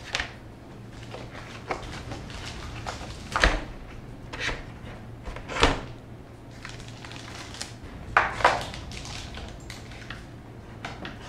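Cardboard box and packaging being handled: a few sharp knocks and bumps, with rustling of paper and a plastic bag as a computer mouse is unpacked.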